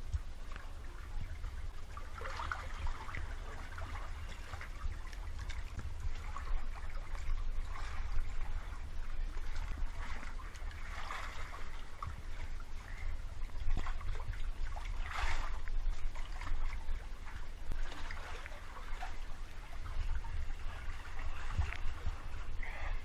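Water sloshing and splashing around a GoPro camera held at the surface, heard through its waterproof housing. A steady low rumble runs underneath, with irregular louder splashes every few seconds.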